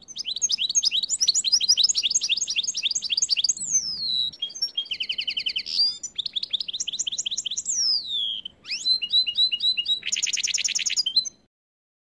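Goldfinch × canary hybrid (mule) singing a long, varied song: rapid high trills, two falling whistled glides and fast buzzy rolls. It stops abruptly near the end.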